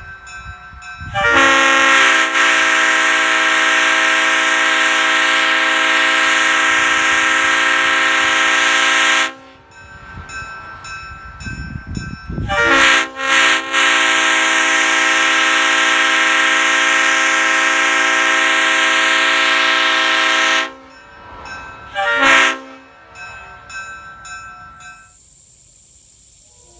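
Leslie RS5T five-chime train horn (bells 25, 31, 37, 44 and 55) sounding its chord. It gives a long blast of about eight seconds, then a few quick toots, a second long blast of about seven seconds, and one short toot.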